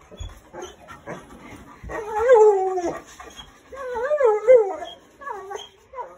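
Large dog whining at the door, eager to go out: three drawn-out whines that waver up and down in pitch, the last one short. A small knock sounds right at the start.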